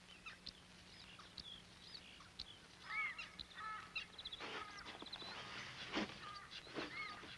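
Faint birds calling and chirping: short whistled chirps, a rising-and-falling call heard twice a few seconds apart, and a quick trill near the middle.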